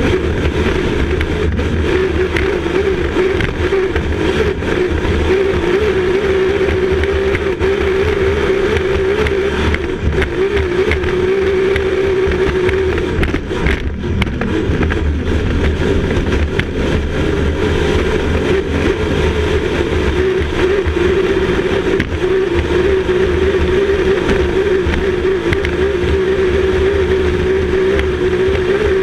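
Grand Prix racing hydroplane's engine running hard at racing speed, heard from inside the cockpit, with a steady wavering drone over the rush of wind and water. The engine note dips and breaks briefly about halfway through.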